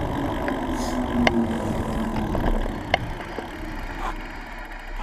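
Steady rush of wind and rolling road noise from riding down an asphalt street, with a couple of faint clicks, fading toward the end.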